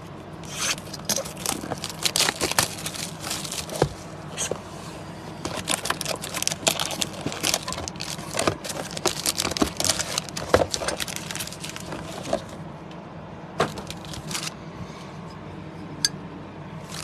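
Foil-wrapped trading-card packs and their cardboard hobby box being handled: packs crinkling, rustling and clacking as they are pulled out of the box and set down, with cardboard scraping. The handling noise goes quiet about two-thirds through, leaving a few single clicks.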